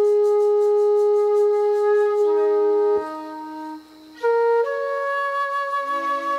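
Flute holding one long, steady note, then the sound drops off abruptly about three seconds in; softer held tones follow, and the flute comes back in on new sustained notes a second later.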